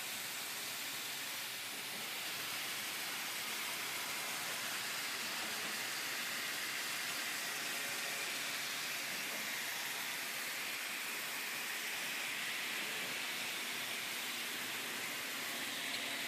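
Bottle filling line machinery running with a steady hiss, rising slightly about two seconds in.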